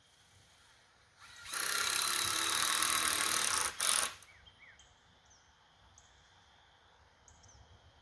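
Handheld power tool running in one burst of about three seconds, with a brief stop near the end and a short final burst, as on a coop frame build.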